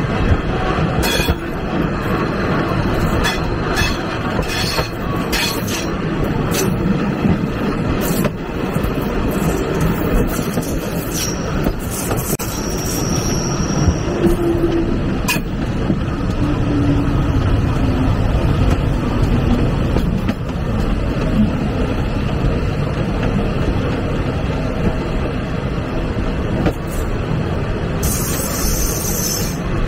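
Passenger train running along the track, heard from the last carriage: a steady rumble of wheels on rails broken by sharp clicks. A brief high-pitched squeal comes about halfway through.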